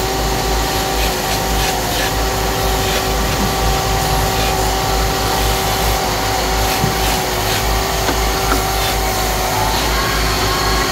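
Belt-driven wood lathe running steadily, its electric motor giving off a constant whine over a steady noise, the whine rising a little near the end.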